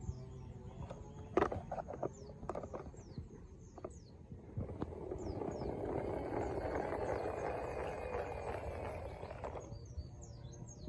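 Small birds chirping repeatedly in short falling notes, with a few sharp knocks about a second and a half in and a rushing noise that swells for about five seconds from the middle and then cuts off.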